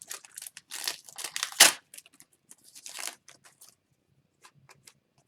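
Foil wrapper of a hockey card pack crinkling and tearing as it is ripped open and the cards handled, in a flurry of irregular crackles with one sharp rip about a second and a half in. It thins out to a few small clicks after about four seconds.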